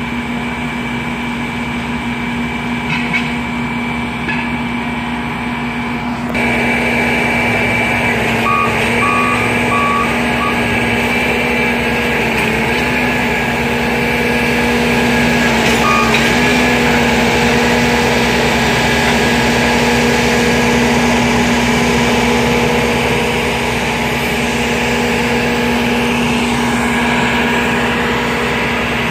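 Diesel engines of railroad maintenance-of-way track machines running steadily, growing louder about six seconds in. Over them, four short backup-alarm beeps sound around nine seconds in and one more at about sixteen seconds.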